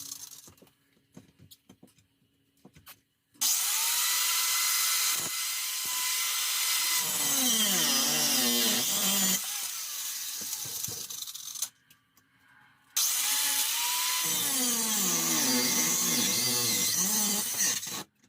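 Handheld power saw cutting off metal screws in wood framing, in two runs of several seconds each. Its motor pitch rises to speed, then dips and recovers as it bites. Light clicks and knocks come before the first run.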